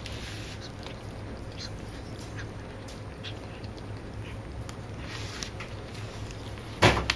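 Newborn kitten squeaking in short calls while the mother cat licks it clean. A sudden loud thump about seven seconds in.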